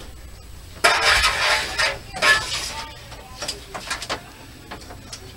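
Wiring being handled and dragged out from under the camper floor: a rustling scrape lasting about a second, a shorter one soon after, then several light clicks.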